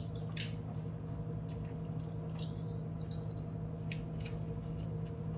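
A small retail package for a buckle being handled and pried open: a few short crinkles and scrapes, over a steady low hum.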